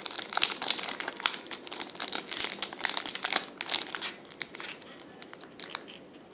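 Foil wrapper of a Pokémon Base Set booster pack crinkling and crackling in the fingers as it is worked open at its sealed top seam. The crackles come thick and fast at first and thin out over the last couple of seconds.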